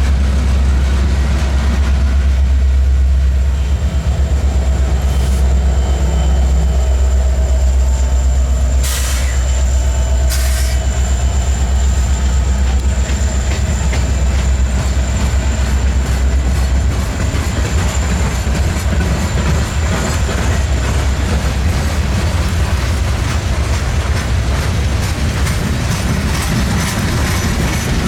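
Train rolling past with a heavy low rumble that eases about two-thirds of the way through, a thin high wheel squeal and steady clicking of wheels over the rail joints. Two sharp clanks come about nine and ten seconds in.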